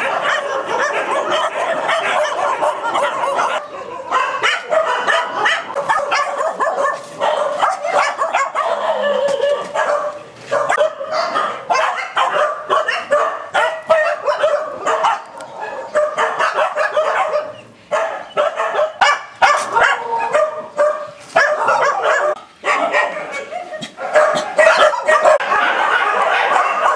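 Many dogs barking and yipping over one another in a continuous din, with a few short lulls.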